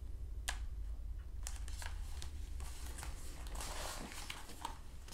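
Pages of a large picture book being handled and turned: a few light taps, then paper rustling and sliding for about two seconds.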